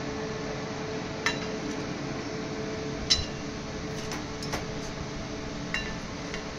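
Stainless-steel ladle clinking against a steel kadhai and serving bowl as curry is ladled out: a handful of sharp, scattered clinks, the loudest about three seconds in, over a steady background hum.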